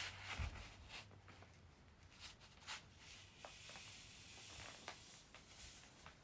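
Faint rustling of a roll of shoji paper being unrolled by hand across a wooden shoji frame, with a few soft ticks and taps.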